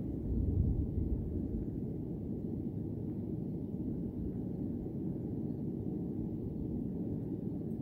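Steady low rumble of outdoor background noise, swelling briefly about half a second in.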